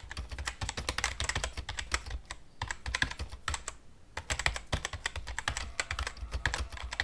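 Rapid, irregular clicking of keys being typed on a keyboard, with short pauses about two and a half and four seconds in.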